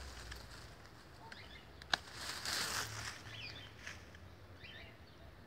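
Pruning shears snip once sharply about two seconds in, cutting a jabuticaba branch, followed by a brief rustle of leaves and twigs. Faint bird chirps sound in the background.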